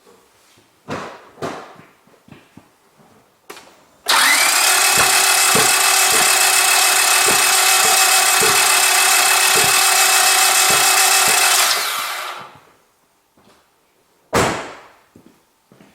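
Car starter motor cranking a gasoline engine that has its spark plugs out for a spark test: a steady loud run with a whine that spins up at the start, lasting about eight seconds and then winding down, and the engine does not start. A few short knocks come before it, and one loud knock near the end.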